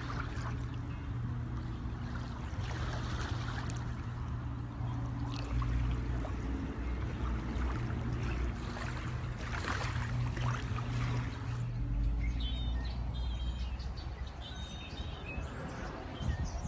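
Motorboat engine running with a steady low hum, with water rushing and splashing along the hull.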